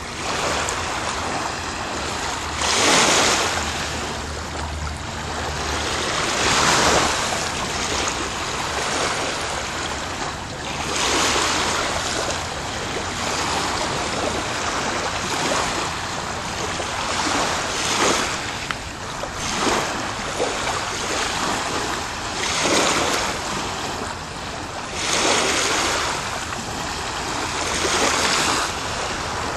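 Small Lake Erie waves washing against a rocky shore, a steady wash that swells in irregular surges every few seconds.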